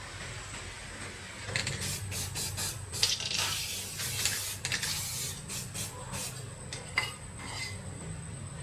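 Clinks, scrapes and knocks of metal parts and tools being handled, with a short hissing rush about three seconds in and a low steady hum underneath.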